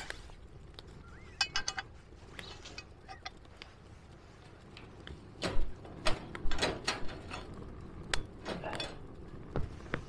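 Clatter of camp cooking gear being handled. A few ringing metal clinks come about a second and a half in, then a run of sharp knocks and clatter through the second half.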